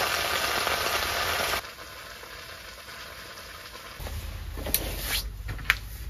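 Potatoes frying in a pan, a loud sizzle that cuts off abruptly about a second and a half in. Afterwards a quieter background with two sharp clicks near the end.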